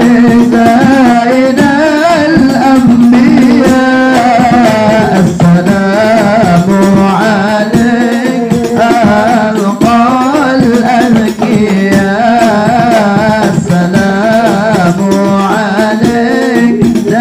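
Sholawat, an Islamic devotional song in Arabic, sung to a hadrah ensemble of hand-played rebana frame drums beating a steady rhythm, without a break.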